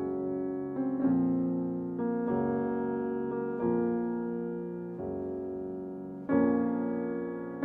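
Background music: electric piano playing sustained chords, a new chord struck about every second or so and fading before the next.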